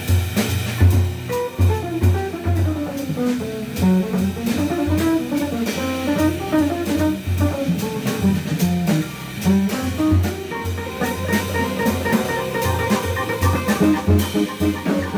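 Jazz organ trio playing live: an archtop electric guitar plays a single-note improvised line over an organ bass line, with drum-kit cymbals keeping time. About ten seconds in, a held note comes in under the guitar.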